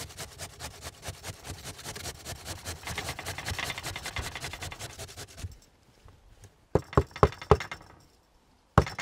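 Raw potato grated on a stainless steel box grater in rapid, even scraping strokes. The grating stops after about five seconds, and four sharp knocks follow close together about seven seconds in, with one more just before the end.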